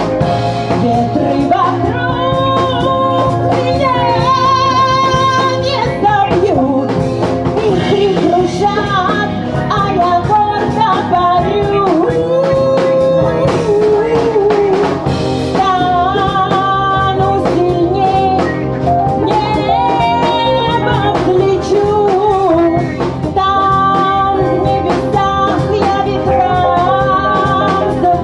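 A live band plays a song with singing over guitar and drum kit. The melody wavers with vibrato, and the sound stays loud and continuous throughout.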